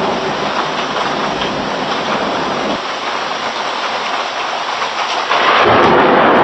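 Heavy rain falling in a dense, steady hiss that gets louder and brighter about five seconds in.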